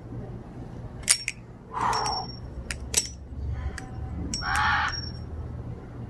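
Balisong (butterfly knife) with solid titanium handles being flipped: several sharp metallic clicks as the handles and blade swing and close, some followed by a short high ring. Crows caw twice in the background, about two seconds in and again past the middle.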